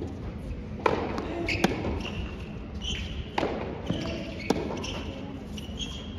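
Tennis rally on a hard court: the ball is struck by rackets and bounces, about four sharp pops spaced irregularly a second or so apart.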